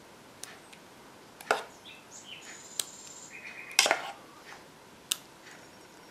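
Spoon tapping and clinking lightly against a small bowl while spreading a layer of mascarpone cream, about five short clicks spread out, with faint high chirps in the middle.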